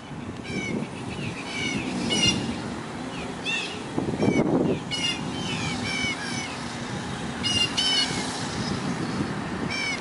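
Birds mobbing a great horned owl, giving short, high, repeated alarm calls in quick clusters every second or two. A steady low rumble underlies them, louder briefly about four seconds in.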